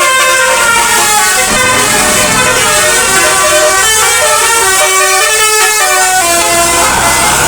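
A bus's multi-tone musical air horn ('telolet basuri') playing a melody of quick stepped notes, several tones at once. A low rumble joins near the end.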